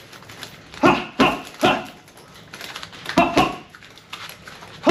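Gloved hooks and elbows striking a heavy bag in quick combinations: three hits about a second in, two just after three seconds, and another starting at the end. Each strike comes with a short, sharp exhaled grunt.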